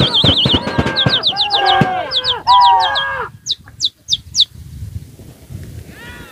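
People calling a pigeon flock down with long, high, drawn-out cries, with quick, repeated downward-sliding whistles over them. The loud calling stops about three and a half seconds in, the whistles a second later, and only faint calls follow.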